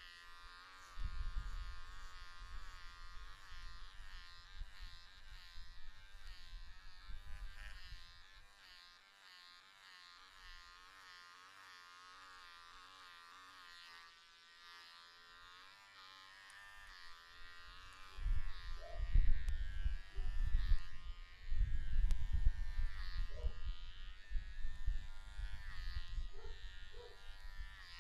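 Electric hair clippers buzzing steadily as they are run over a short-cropped head in a self-administered haircut. Irregular bursts of low rumble come in about a second in and again for the last third, louder than the buzz.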